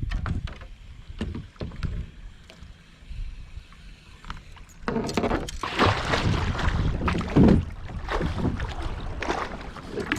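Kayak being paddled on a river: a few light knocks in the first couple of seconds, then louder paddle strokes swishing through the water from about halfway, over a low wind rumble on the microphone.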